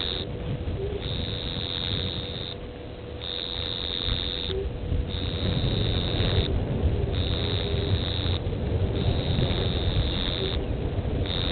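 An insect's high buzzing call, repeated in pulses about a second long with short gaps between, over a steady low rumble.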